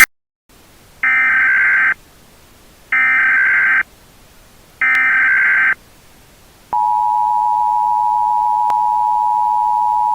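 Emergency Alert System tones: a brief click, then three one-second bursts of screeching digital header data about a second apart. About seven seconds in, the steady two-tone EAS attention signal begins.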